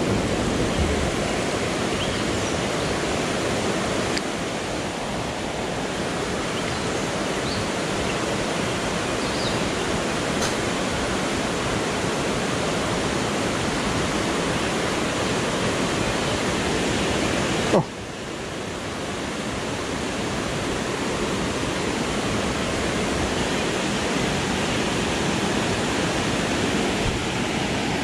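Steady rushing of river water. A single sharp click sounds about two-thirds of the way through.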